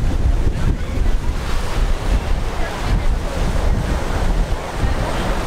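Wind buffeting the microphone in a heavy, uneven rumble over the steady wash of Gulf of Mexico surf.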